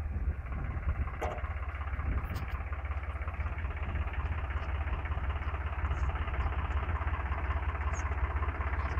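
Swaraj 744 FE tractor's three-cylinder diesel engine running steadily with a fast low throb while it pulls a tine cultivator through the soil.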